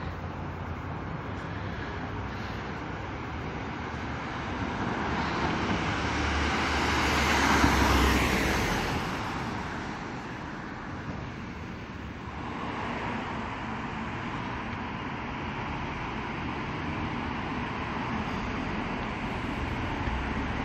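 Street traffic: a vehicle passes close by, its tyre and engine noise swelling to the loudest point about eight seconds in and then fading. Steady road noise from other traffic continues underneath.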